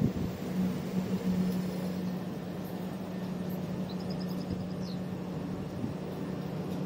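Southern Class 377 electric multiple unit moving slowly along the platform, a steady low hum over the rumble of its wheels on the rails. A short rapid run of high ticks sounds about four seconds in.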